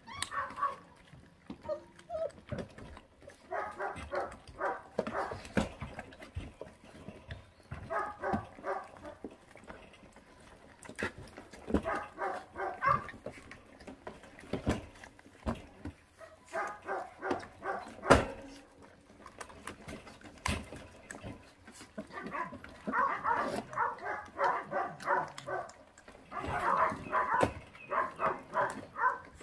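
Month-old puppies whining and growling in repeated short bouts while gnawing raw meat and rib bones, with scattered clicks of chewing and bone cracking and one sharp knock about 18 seconds in.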